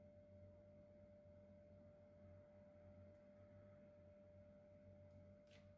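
Near silence: faint room tone with a thin steady tone held throughout and a low hum underneath, and a faint tick near the end.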